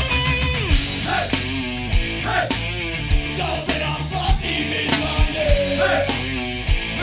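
Punk-metal rock band recording: distorted electric guitars and drum kit playing to a steady beat, with a wavering, bending melodic line over them.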